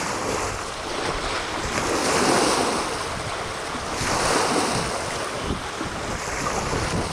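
Wind blowing on the microphone over choppy water lapping, with a low rumble throughout and two louder swells about two and four seconds in.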